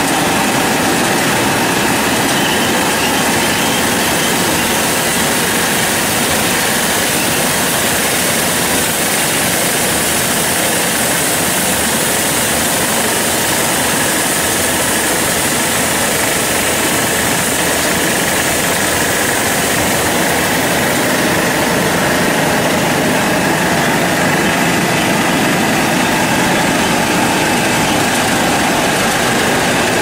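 Commercial bubble-type vegetable washing machine running: a steady, even noise of spray nozzles and churning water in the wash tank, with faint steady tones from its motors.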